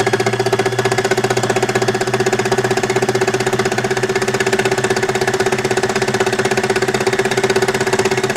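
Baby Lock Embellisher felting machine running steadily, its twelve needles punching rapidly up and down through fancy fabric with a steady hum and a fast, even chatter.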